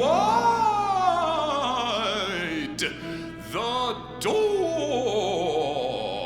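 Avant-garde orchestral music: a sustained low chord under wavering pitched glides that fall and swoop, broken by three sharp hits near the middle.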